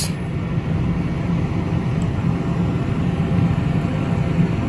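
Steady low rumble of a cargo ship underway, the hum of its engine and machinery running evenly.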